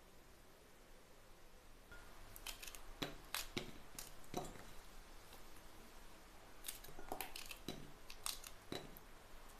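Fresh long green peppers snapped into pieces by hand: a series of crisp snaps starting about two seconds in, coming in two bursts, with the pieces dropping into a glass bowl.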